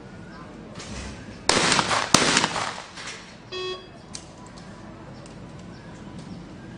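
Two shotgun shots from a skeet shooter firing at a pair of clay targets, about two-thirds of a second apart, each followed by a short echo. About a second after the second shot a short electronic beep sounds.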